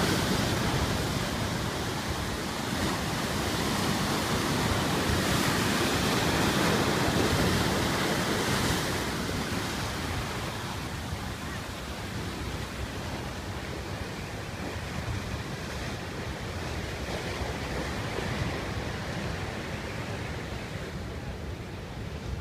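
Ocean surf breaking and foaming against shoreline rocks: a loud, churning wash of whitewater that eases after about nine seconds into a softer, steady wash of open sea.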